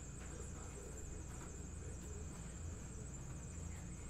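Quiet room tone: a steady low hum and a faint high-pitched whine, with faint rustles from a cardboard shoebox being handled.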